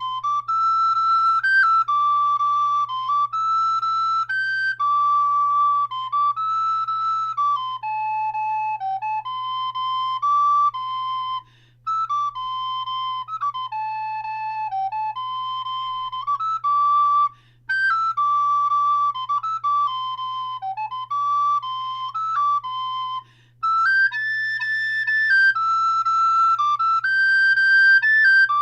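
Moeck Rottenburgh rosewood soprano (descant) recorder playing a lively original melody solo, fingered as an alto so it sounds in a higher key, in phrases broken by short breath pauses about 12, 17 and 23 seconds in.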